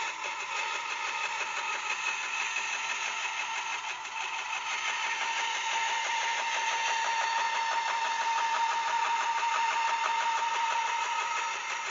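Rikon 10-326 14-inch band saw running and resawing a pine board lengthwise, the blade cutting steadily through the wood over a steady whine from the saw.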